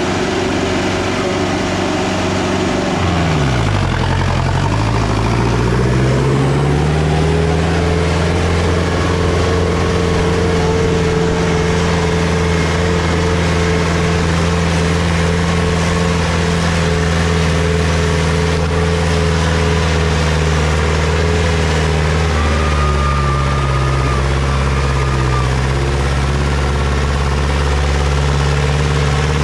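HMT 6522 tractor's diesel engine being driven hard. The revs drop sharply about three seconds in, climb back over the next few seconds and hold high and steady, with a brief dip about two-thirds of the way through.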